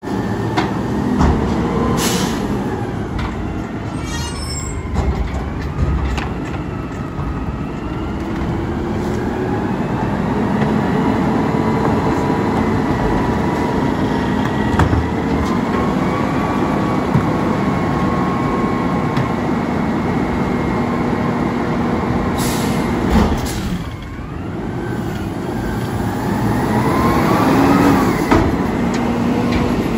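Autocar ACX front-loader garbage truck with compressed natural gas power running at idle, with a steady hydraulic whine. Trash carts bang against the container on the forks several times as a worker empties them by hand. Near the end the engine speeds up as the truck moves off.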